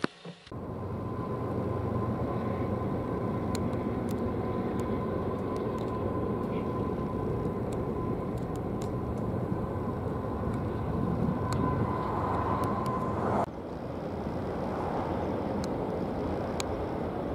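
Steady engine noise of an airfield ramp with a faint high whine and scattered light clicks; it breaks off abruptly about thirteen seconds in and carries on a little quieter without the whine.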